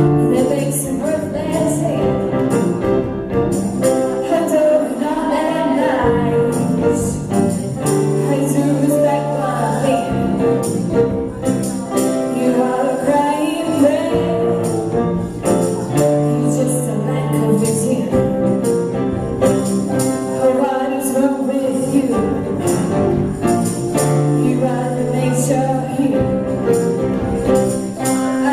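A band playing an acoustic arrangement of a rock song live, with held low notes, a wavering melody line and frequent bright percussion hits.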